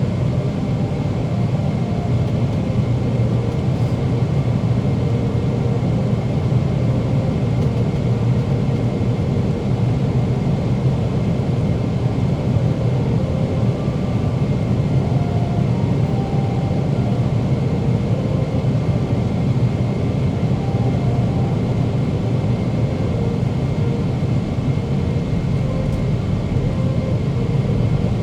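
Steady cabin noise inside a Boeing 777-300ER in flight: a deep rumble of airflow and the GE90 engines, with a faint high steady whine over it and no changes or sudden events.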